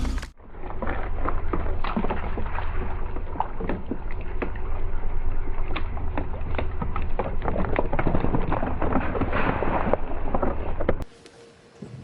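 Dense, irregular crackling and crunching over a steady low engine rumble, as a car tyre slowly crushes something brittle; it cuts off suddenly about eleven seconds in.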